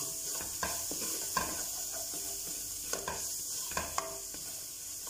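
Tomato paste sizzling in olive oil in a stainless steel pot, stirred with a spatula that scrapes and knocks against the pot several times, each knock briefly ringing. The paste is cooked, no longer sticking to the pot.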